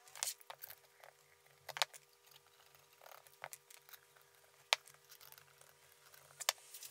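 Small steel rods, nuts and screws clicking and clinking against a wooden workbench and a copper tube as they are picked up and a rod leg is fitted into the tube end. There are scattered sharp clicks, one louder than the rest about two-thirds of the way through, over a faint steady hum.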